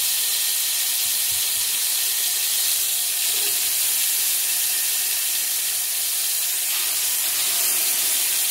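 Marinated chicken leg pieces shallow-frying in oil in an aluminium pan on a low flame: a steady, even sizzle.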